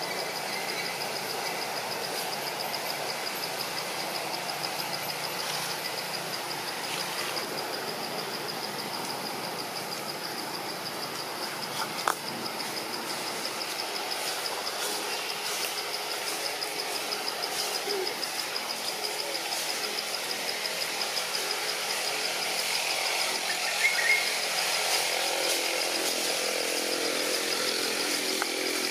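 Steady high-pitched insect drone with a fast fine pulse over a low outdoor hum, broken by one sharp click about twelve seconds in.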